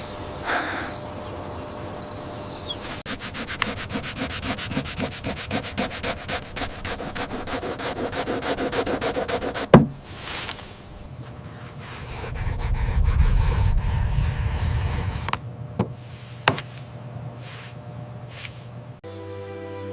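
Fast, even rubbing strokes, several a second, lasting several seconds, then a single sharp knock, a low rumble and a couple of clicks.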